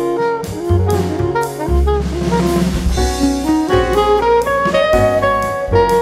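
Instrumental jazz background music, a horn-like melody over a drum kit.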